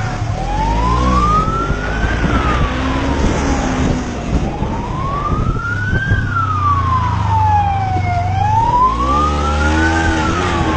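Police siren on a motorcycle in slow wail mode, rising for about two seconds and falling for about two, over and over. The motorcycle's engine runs underneath, its note rising and falling about a second in and again near the end.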